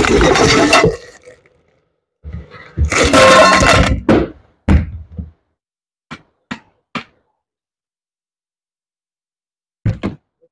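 Packaging being handled: cardboard box and bubble wrap crinkling in two loud bursts, then a few light clicks. Near the end comes a thunk as the grinder's motor head is set down on a wooden table.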